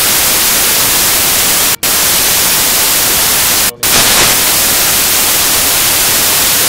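Loud, steady static hiss, like white noise, with no tone or rhythm in it. It cuts out completely twice, briefly, about two and about four seconds in.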